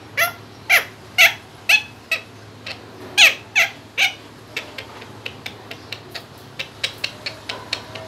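Rose-ringed parakeet (Indian ringneck) calling: a string of loud, harsh, downward-sliding squawks, about two a second. About halfway through they give way to a run of short, quieter clicking calls.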